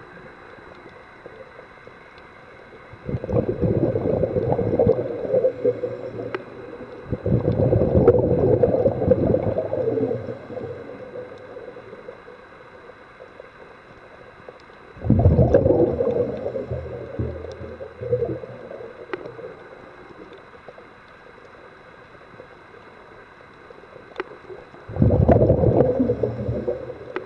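Underwater recording of a scuba diver's exhaled breath bubbling from the regulator: four gurgling bursts of bubbles, each lasting two to three seconds, with a low hiss of water between them.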